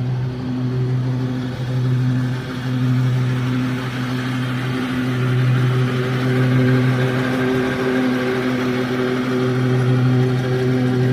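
Petrol lawn mower engine running at a steady pitch.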